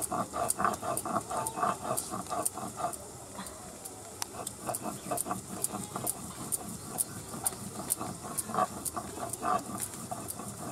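Stone hand-roller rubbed back and forth on a flat stone grinding slab (shil-nora), grinding cumin and ginger into paste: rhythmic stone-on-stone scraping at about three strokes a second, with a short pause about three seconds in.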